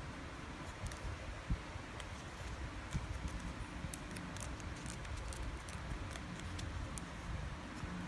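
Many light clicks and taps, as small hard parts are handled and fitted by hand, over a steady low background rumble.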